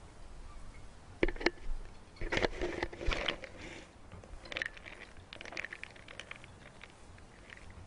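Camera handling noise as a gorilla grabs and moves the camera about: a few sharp knocks just over a second in, a louder stretch of knocks and scraping against the housing around two to three and a half seconds in, then lighter clicks and rustles.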